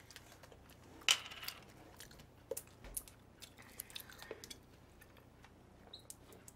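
Faint scattered clicks and light clinks of a plastic water bottle and tableware being handled at a meal table, the sharpest click about a second in.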